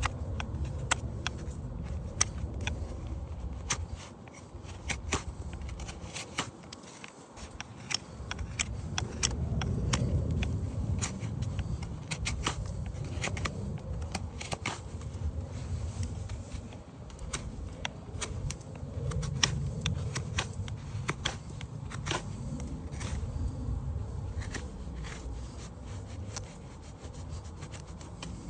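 Farrier's hand tools working a horse's hoof during shoe and pad removal and trimming: irregular sharp clicks and scrapes of steel on hoof and nails. Under them, heavy breathing close to the microphone swells and fades.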